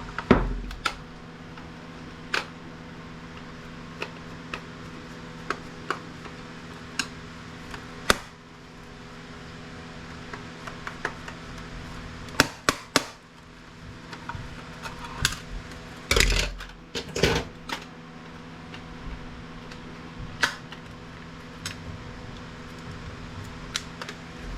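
Plastic casing and small metal parts of IT equipment being taken apart by hand: scattered sharp clicks and taps, with bursts of clatter and a few heavier handling knocks about halfway through and again a few seconds later, over a steady low hum.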